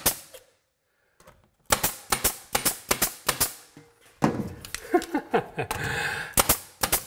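DeWALT pneumatic nailer firing nails through a door jamb into the wood framing: a single sharp shot at the start, then a quick run of shots about four a second, and another run near the end.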